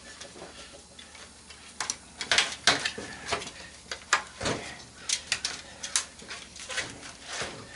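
A dozen or so irregular sharp clicks and snaps: cutters snipping wires and the plastic and metal parts of a CRT monitor's chassis knocking as its circuit board is worked loose.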